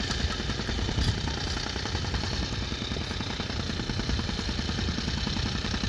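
Construction machine engine running steadily under work, with a fast, continuous rattle.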